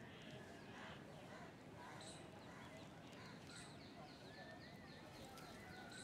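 Faint chirping of small birds, many short high calls scattered throughout, over a low background hum.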